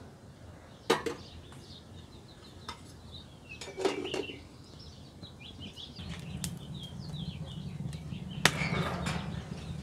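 A few light metal clinks and knocks as the lid is set on a small aluminium pot, with small birds chirping in the background; a low steady hum comes in about six seconds in.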